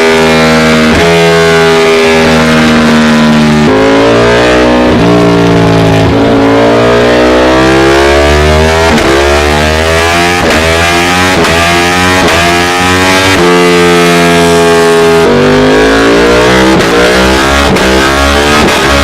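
Ducati Panigale V4 engine through an aftermarket exhaust, running loud under acceleration. The pitch climbs again and again, each climb ending in a sudden drop, as with upshifts.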